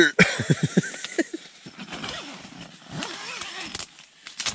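Nylon sleeping bag and tent fabric rustling as a man struggles out of his bag, with a few short grunting noises from him about a second in. Near the end the tent door zipper is pulled open.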